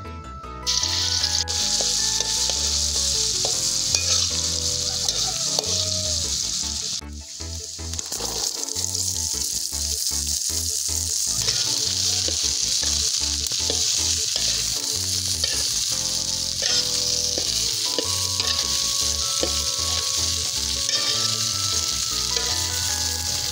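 Hot oil in a wok sizzling hard as ground spice paste is dropped in, starting suddenly about a second in. After a short dip around seven seconds, cut green beans sizzle steadily as they are stir-fried with a spatula.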